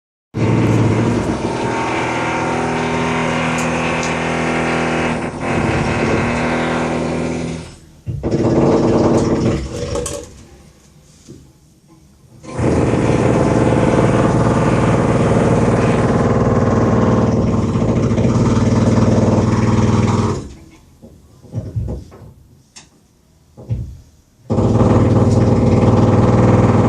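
Construction machinery running in loud spells of several seconds, a steady droning hum that drops away between spells; the pitch falls as the first spell winds down, about seven seconds in.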